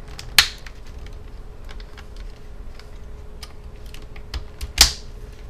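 Plastic clips of a laptop screen bezel snapping loose as it is pried up with a small flathead screwdriver. There are two loud snaps, one about half a second in and one near the end, with light plastic clicks and ticks between them.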